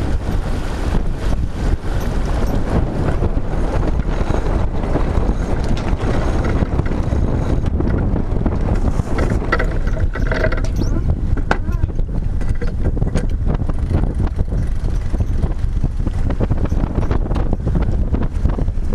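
Steady wind noise buffeting the microphone of a sailboat under sail, a loud low rumble with water rushing along the hull.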